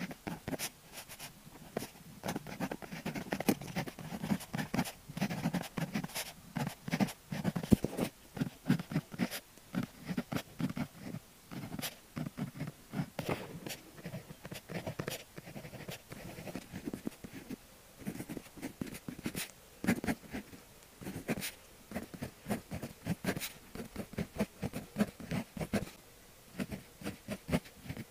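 Needle-tip fineliner pen writing on paper: an irregular run of short scratching strokes with many sharp little ticks as the tip touches down and lifts.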